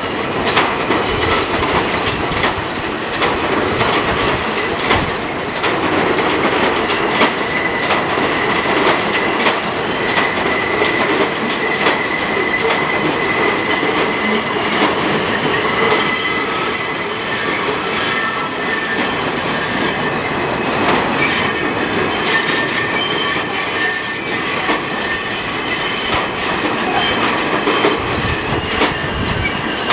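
R160 subway cars rolling slowly around a tight curve, their wheels squealing in several long, high-pitched tones over a steady rumble, with wheel clicks over the rail joints.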